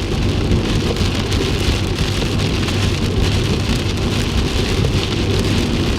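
Heavy rain beating steadily on a moving car, heard from inside the cabin over a low, steady road and engine hum.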